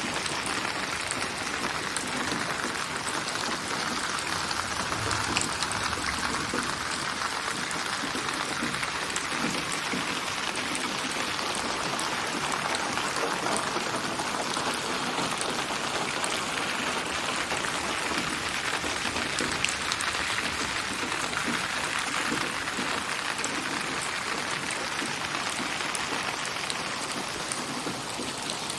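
Steady rain falling on surfaces, with scattered sharp drop ticks. Its intensity slowly swells and eases.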